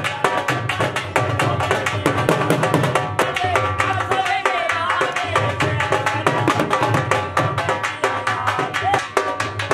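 Punjabi dhol drums beaten with sticks in a fast, steady rhythm.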